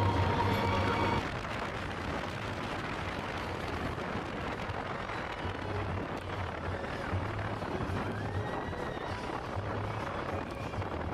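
Space Mountain roller coaster ride: the train runs through the dark with a steady, noisy rumble and low humming surges. Ride music cuts out about a second in.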